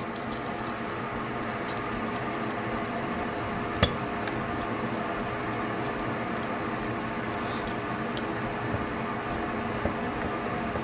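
Light clicks and small clinks of metal parts of an engraving ball vise being handled and fitted, with one sharper click about four seconds in, over a steady room hum.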